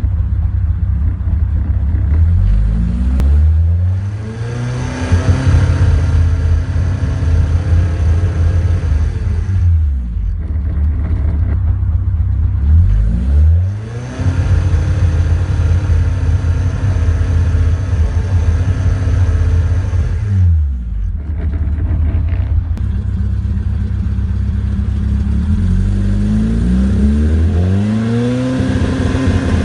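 Engine on Omex engine management revved up from idle and held at raised revs for several seconds, twice, dropping back to idle in between, then revved up again near the end. The owner is chasing a misfire on this engine.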